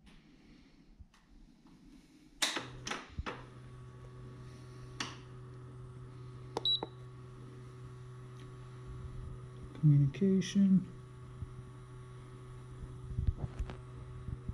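A few sharp clicks, then a steady low hum starts about two and a half seconds in and holds. A short high beep sounds about midway.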